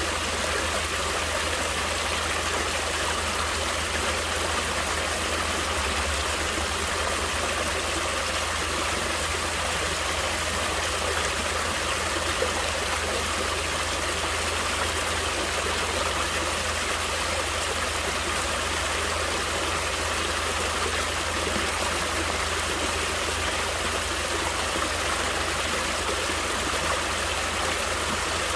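Natural running water flowing steadily: an even, unbroken rush with no changes.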